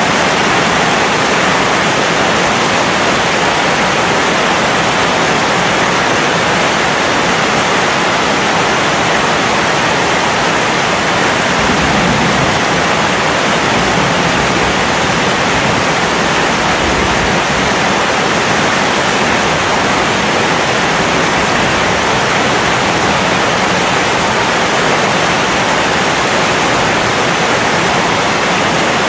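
Heavy rain pouring down steadily, with runoff streaming off the edge of a roof.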